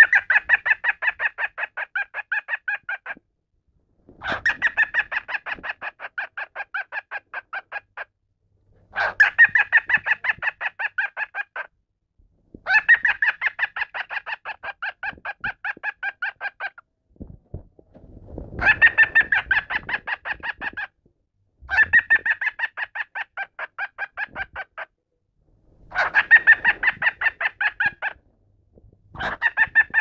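A cockatiel mimicking human laughter: about eight bouts of rapid, pulsed 'ha-ha-ha' calls, each a few seconds long, starting loud and fading away, with short pauses between them.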